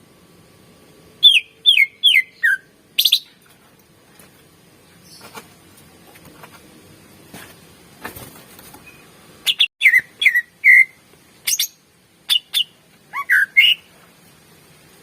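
Cucak ijo (green leafbird) singing: sharp whistled notes that slide down in pitch, a quick run of four about a second in, then a pause of several seconds, then a burst of rapid notes and short rising and falling phrases in the second half.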